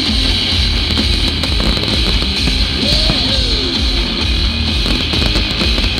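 Loud heavy rock music with electric guitar, played over big outdoor loudspeakers as a fireworks soundtrack.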